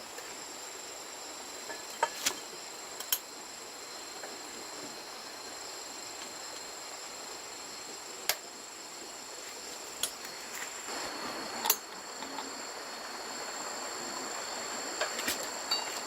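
Steady high-pitched insect chirring throughout, broken by a handful of short, sharp clicks or taps.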